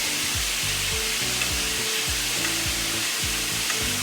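Chicken pieces frying in a pan of peanut and vegetable oil: a steady sizzle with a few small pops of the oil, under background music with a steady beat.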